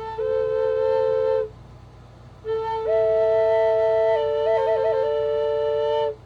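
Slow flute music: long held notes with a lower note sustained beneath the melody and quick trill ornaments, played in two phrases with a breath pause of about a second between them and another near the end.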